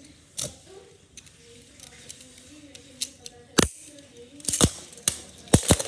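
Beyblade tops spinning in a plastic stadium with a faint steady whir, then a handful of sharp plastic clacks in the second half as the tops strike each other, the last ones as a low-burst-resistance top bursts apart.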